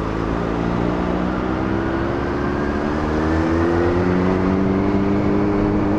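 Yamaha FZ6 Fazer's 600 cc inline-four engine pulling steadily in traffic. Its pitch rises slowly as the bike gathers speed.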